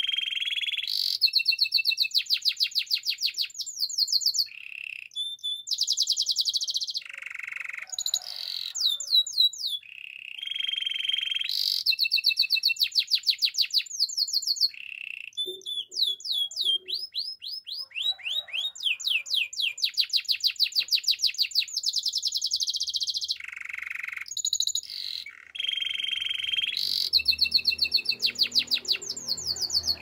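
Domestic canary singing a long, near-continuous song of rapid trills and rolls, with short pauses between phrases.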